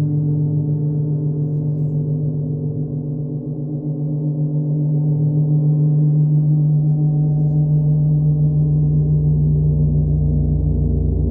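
A 50-inch Sound Creation gong droning under a friction mallet: a sustained, rough hum that holds its pitch and swells louder about halfway through, with a deep low rumble building underneath in the second half.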